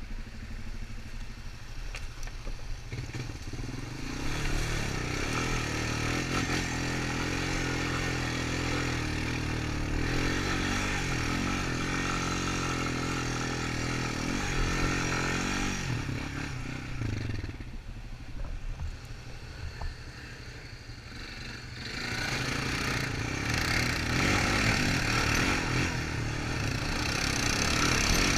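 Honda Recon 250 ATV's single-cylinder four-stroke engine running while riding a dirt trail, its pitch rising and falling with the throttle. It eases off for a few seconds past the middle, then gets louder again.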